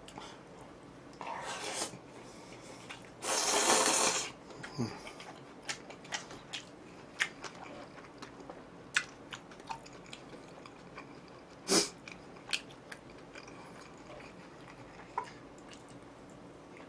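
A person chewing jjajang instant noodles, with many small wet clicks and smacks. There is a longer noisy burst about three seconds in and shorter ones near the start and near the twelfth second.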